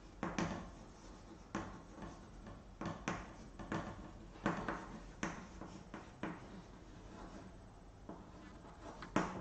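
Chalk writing on a chalkboard: irregular short taps and scrapes of the chalk, about a dozen in all, as words are written.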